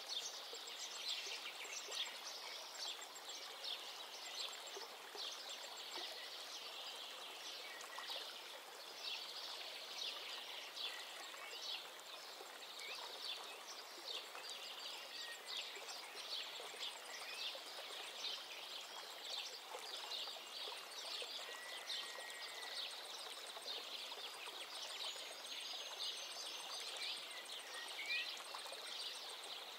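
Steady nature ambience: many small birds chirping and twittering over a continuous hiss like running water.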